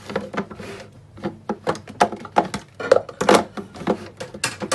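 Irregular knocks and clatter of a blender's jar and parts being handled and set in place on the counter; the motor is not running.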